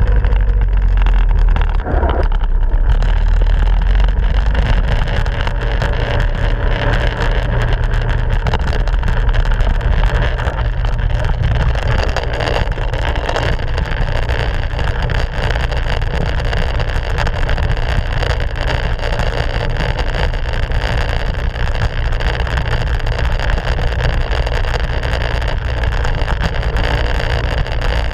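Minibike engine running steadily under way on a dirt trail, heard from a camera mounted on the bike.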